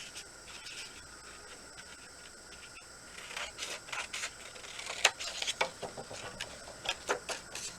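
Scissors cutting paper: after a quiet start, a run of irregular snips and paper rustling from about three seconds in.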